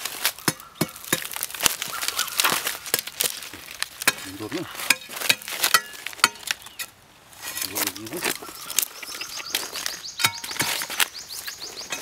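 Irregular sharp knocks and scrapes of a long-handled iron digging tool chopping into the hard, dry earth of a mound at a tree's base, with dry leaves crackling underfoot.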